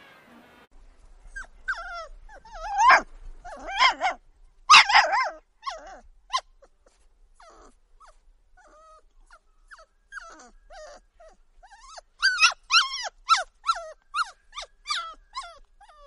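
Puppy yapping in high-pitched yips and whines. There are loud clusters of barks early, softer whimpering squeaks in the middle, and a quick run of yips, about four a second, near the end.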